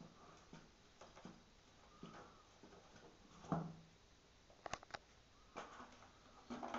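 Kittens playing in and around a cardboard box: faint, scattered taps and scuffs of paws on cardboard and carpet, a louder thump about three and a half seconds in, and a quick cluster of sharp clicks about a second later.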